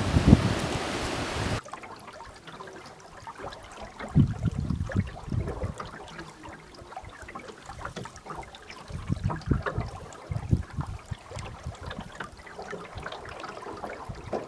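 Loud rushing wind-like noise that cuts off abruptly about a second and a half in, followed by quieter, irregular trickling and gurgling water with small clicks and low bumps.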